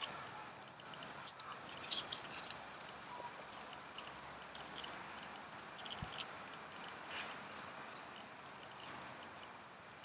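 Velcro straps and a fabric bicycle bag being handled while the bag is strapped to a scooter stem: short, irregular scratchy rustles and rips, with a soft knock about six seconds in.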